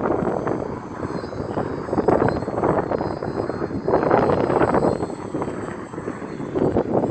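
RC model gyrocopter's motor and propeller running in flight, with rotor noise. The steady drone swells and fades as the model flies past, loudest about four seconds in.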